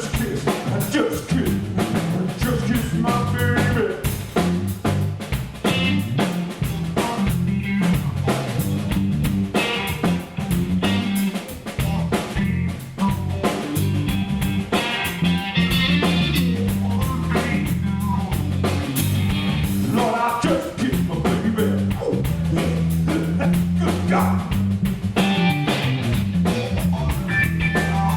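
Live blues band playing an instrumental passage: drum kit keeping a steady beat under bass and electric guitar.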